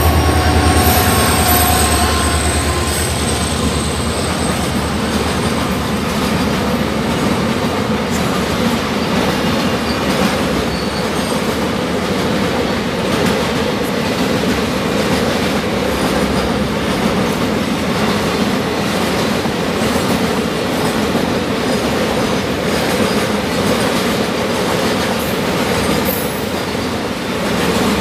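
Container freight train's wagons rolling past on the rails: a steady rumble with clattering wheels and some wheel squeal. Loudest in the first couple of seconds, with a low hum and a few high squealing tones that fade out.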